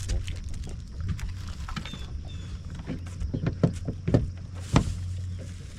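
A boat's motor running steadily at low speed, with a run of short knocks and clicks against the boat, the sharpest one near the end.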